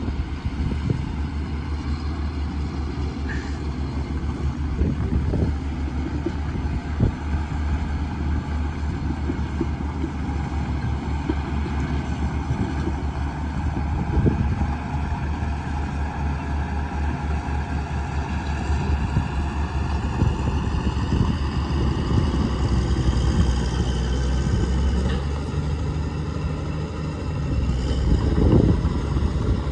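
Caterpillar bulldozer's diesel engine running steadily under load, with a dense low clatter throughout. The engine pitch rises about two-thirds of the way in, and the sound swells briefly near the end.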